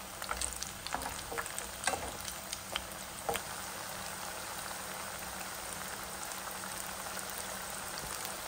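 Semolina-coated jackfruit slices frying in hot coconut oil: a steady bubbling sizzle, with a few sharp ticks and pops in the first three seconds or so.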